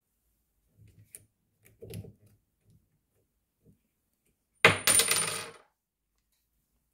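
A hex screwdriver bit drops out of a DeWalt 18V impact driver's bit holder about two-thirds of the way in and lands on a wooden workbench with a sharp clatter and a brief metallic ring. The holder is failing to retain bits because the spring inside the chuck is worn or broken. Before that there are a few soft handling knocks.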